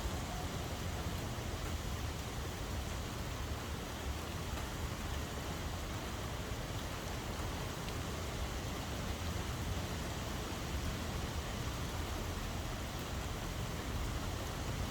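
Steady rain falling, an even hiss without distinct drops, over a low rumble.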